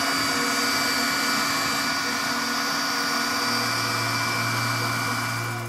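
3D printer running, its fans giving a steady whir with several steady high tones over it; the noise cuts off suddenly at the end.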